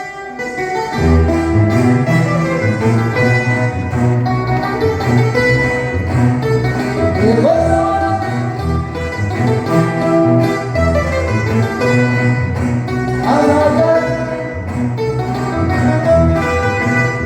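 Band music with a tuba playing a bass line under melody instruments, with a couple of rising pitch glides in the melody.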